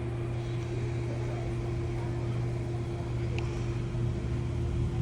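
Outdoor air conditioner condensing units running: a steady hum of compressors and condenser fans, with a constant low drone and a fixed higher tone.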